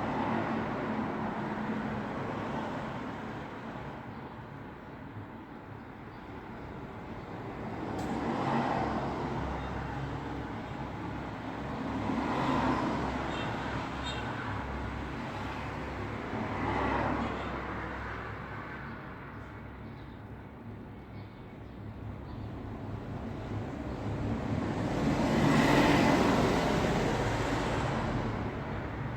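Road traffic: vehicles passing one after another, each one's tyre and engine noise swelling and fading over a few seconds. About five pass, the loudest near the end, over a steady low rumble of traffic.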